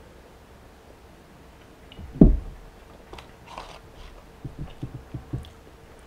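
A man chewing a mouthful of burger close to the microphone: a single loud low thump about two seconds in, then a breathy sound and a run of short wet chewing clicks and smacks near the end.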